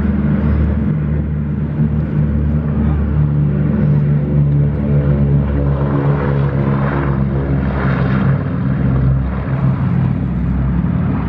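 Boeing B-17 Flying Fortress's Wright R-1820 Cyclone radial piston engines running steadily with a loud, even drone.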